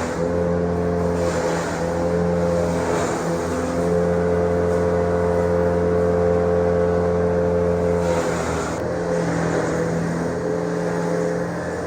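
Motor of a grass chopping machine running with a steady hum. Its note shifts briefly twice, about three and a half and eight and a half seconds in.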